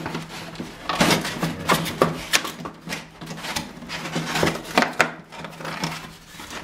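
Cardboard packaging of a door lock set being handled and opened: irregular rustling, scraping and knocks as the tape comes off and the parts are pulled out.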